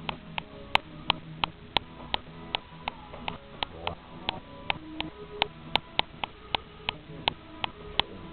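Sharp clicks at a steady rate of about three a second, over faint, chopped-up background sound.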